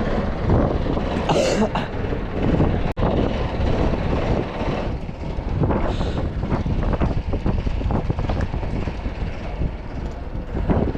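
Boat engine running steadily, with wind buffeting the microphone in irregular gusts.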